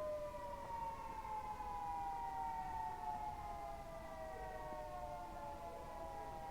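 Federal Signal 2T22B dual-tone electromechanical warning siren winding down. Its two-note chord slides slowly and steadily lower in pitch as the rotors coast after the steady tone is cut.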